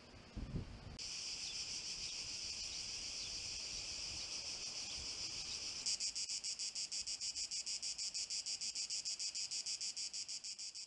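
Cicadas singing: a steady high buzz that, about halfway through, becomes louder and evenly pulsed at roughly ten pulses a second.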